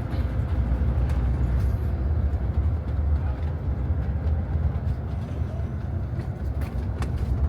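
Steady low rumble of a long-distance bus driving, its engine and road noise heard inside the passenger cabin.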